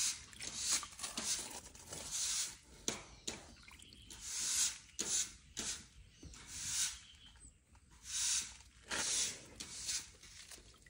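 Baby African elephant snuffling with its trunk close to the microphone: a run of short, breathy puffs of air, irregular, about one or two a second.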